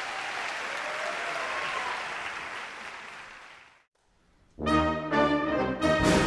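Applause with a faint whistle, fading out over about four seconds. After a brief silence, orchestral music led by brass starts.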